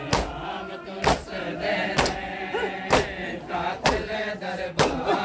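A crowd of men beating their chests in unison (matam), a sharp slap about once a second, while male voices chant a noha.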